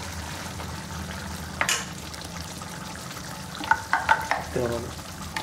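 A pan of tamarind curry simmering with a steady low bubbling. A metal ladle knocks once about a third of the way in, then taps and scrapes against a steel mixer jar several times in quick succession near the end as ground paste is scooped out into the curry.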